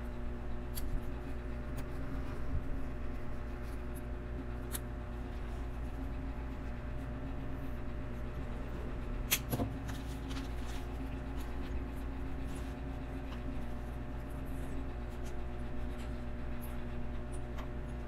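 LEGO pieces being handled and snapped together: scattered small plastic clicks and rattles, the loudest about nine seconds in, over a steady room hum.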